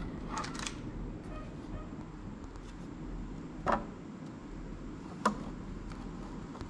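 Wooden panels of a flat-pack desk organizer handled and fitted together: light taps and knocks, with two sharper knocks about three and a half and five seconds in, over a low steady hum.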